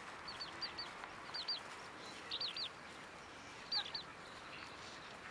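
A bird calling in short groups of two or three quick, high, falling notes, about five groups, the loudest near the end, over a faint steady outdoor hiss.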